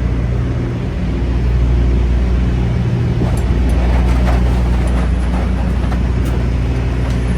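Semi-truck diesel engine running steadily with a low, even hum.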